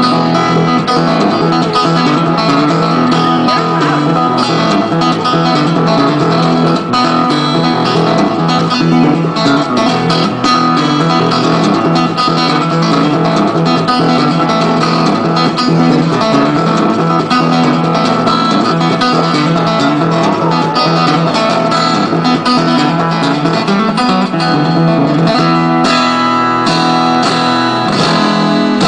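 Acoustic guitar playing steady strummed and picked chords as continuous music.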